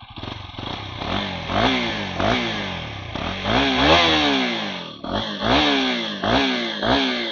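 KTM 250 Duke single-cylinder engine revved up and down again and again, about twice a second. It runs without abnormal noise now that a new tensioner has been fitted.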